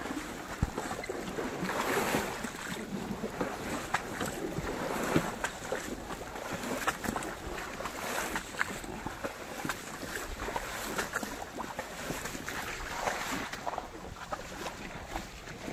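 Asian elephant wading through shallow water, its feet splashing and sloshing in slow swells with many small splashes, with some wind on the microphone.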